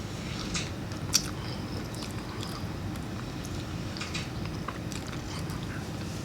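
Close-miked eating of boiled peanuts: chewing, with small clicks and squishes from the soft, wet shells. The sharpest click comes about a second in.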